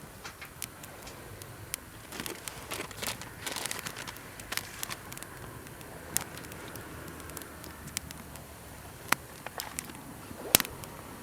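Wood campfire crackling with irregular sharp pops over a low steady hiss; the loudest pop comes about ten and a half seconds in.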